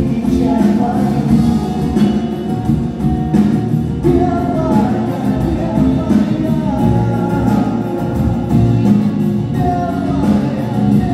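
Live band playing through the hall's PA: a lead voice singing over electric guitars and drums, heard from the balcony of a large concert hall.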